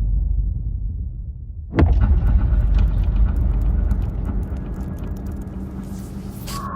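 A deep rumble, a sudden boom about two seconds in, then a continuing rumble with many small crackles.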